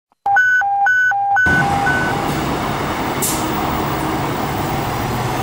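A fire engine's siren sounding a two-tone hi-lo, switching between two pitches about twice a second. Then the truck's diesel engine runs loud as the tone fades, with a short hiss about three seconds in.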